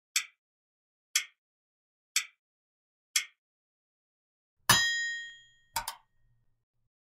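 Quiz countdown-timer sound effect: four sharp ticks one second apart, then a loud ringing ding as time runs out, followed by a quick double click.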